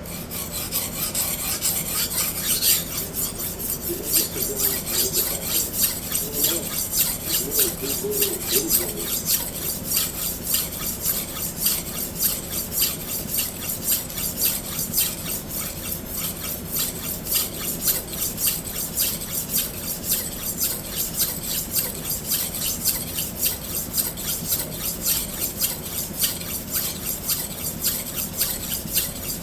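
A hard Japanese steel knife blade scraping back and forth on a sharpening stone under firm pressure, with quick, even, rasping strokes. It is the grinding stage of cutting in a fresh edge bevel to take out deep chips.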